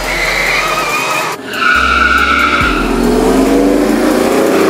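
Tires squealing on Ford F-150 Lightning pickups spinning their wheels at the drag strip's start line. The sound breaks off briefly about a second and a half in, and a second, louder squeal follows. In the last two seconds a pickup's V8 revs up with a rising engine note.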